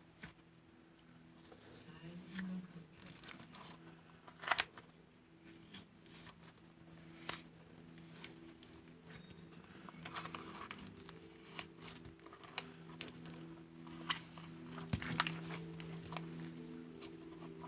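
Slime being handled: squished, stretched and poked, with scattered sharp clicking pops and soft crinkly squelching.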